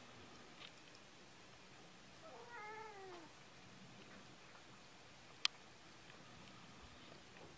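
A domestic cat gives one short meow, about two and a half seconds in, its pitch falling at the end. A single sharp click comes about two-thirds of the way through.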